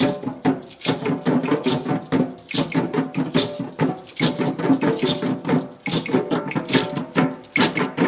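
Djembe hand drumming: a fast, continuous rhythm of hand strokes, mixing deep ringing tones with sharp high slaps.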